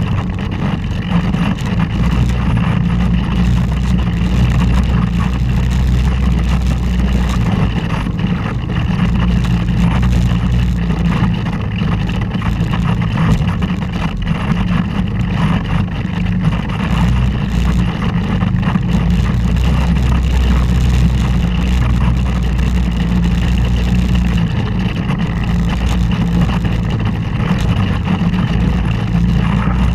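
Polaris Ranger side-by-side's engine running steadily as it drives along a rough dirt trail, a low hum that rises and falls only a little.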